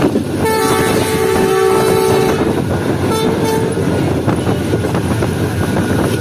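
Locomotive horn sounding one long two-note blast of about two seconds, then a short toot about a second later, over the steady rumble of the moving train.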